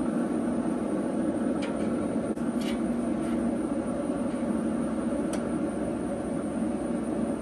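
Steady drone of a running Recteq Bullseye pellet grill's fan, an even hum with a few faint clicks.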